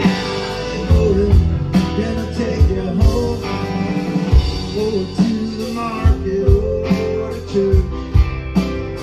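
Live rock band playing: strummed acoustic guitar, electric guitar, bass guitar and drums keeping a steady beat.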